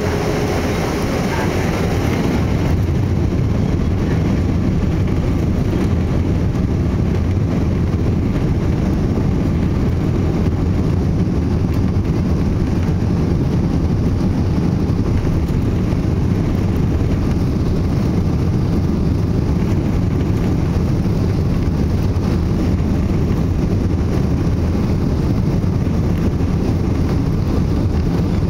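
Boeing 777-200 airliner during takeoff: a steady, loud low rumble of the jet engines under power.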